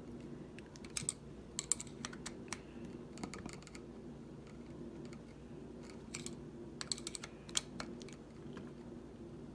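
Irregular light clicks and taps of a hex driver and metal parts as a DLE 20 engine's muffler bolt is tightened a final quarter turn into a new thread insert. The clicks come in small clusters over a low steady hum.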